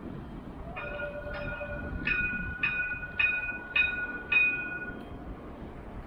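Alstom Citadis 405 tram's warning bell ringing seven times, a little under two strikes a second, each a bright ding that rings on.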